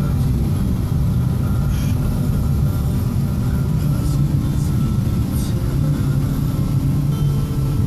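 Steady low rumble of a car's engine and tyres, heard from inside the cabin while driving slowly in traffic.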